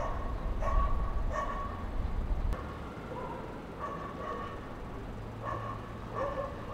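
A dog barking repeatedly in short, pitched barks, with a low rumble underneath that drops away about two and a half seconds in.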